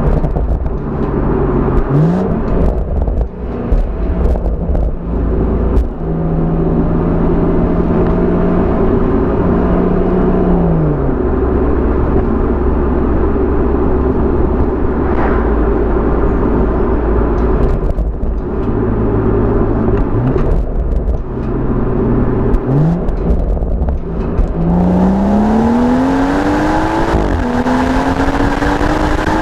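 BMW M140i's turbocharged 3.0-litre straight-six exhaust on the move. The revs climb several times, the longest a sustained pull near the end, with a stretch of steady cruising that drops off as the throttle is lifted. Road and wind rumble runs underneath.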